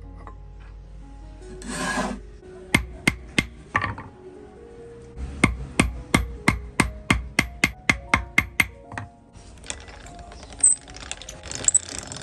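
A small hammer striking a lump of gold on a steel bench block: a few separate blows, then a quick, even run of about fifteen strikes at roughly four a second.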